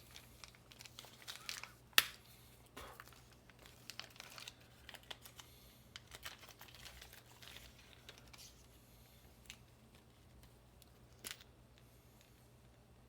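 Plastic packaging crinkling and rustling, with scattered small clicks and taps as parts are handled; one sharp click about two seconds in and another near the end.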